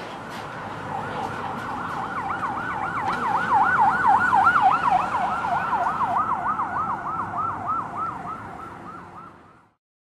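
Ambulance siren in a fast yelp, its pitch sweeping up and down about three to four times a second. It grows louder toward the middle, fades away, and cuts off just before the end.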